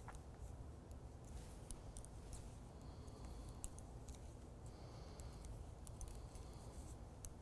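Faint, irregular clicking of circular knitting needles as stitches are knitted, over a low steady room hum.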